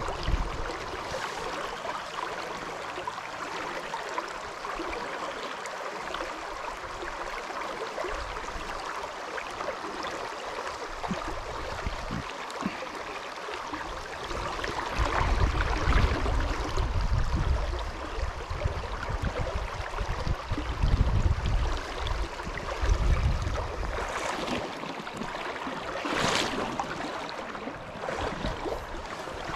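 Shallow river water running over a rocky riffle, a steady rush. In the second half wind gusts buffet the microphone in low rumbles, and near the end there are two short sharp noises.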